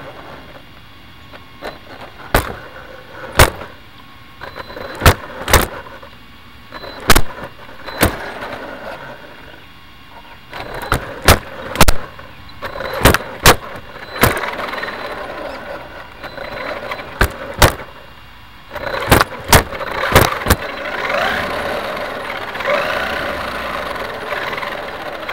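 RC car with loud, irregular knocks and clatter, about a dozen sharp hits spread unevenly. In the last several seconds a motor whine wavers up and down under the knocks.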